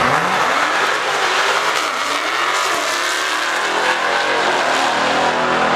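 Dodge Hellcat's supercharged V8 engine running loud at the drag strip, its pitch slowly rising and falling.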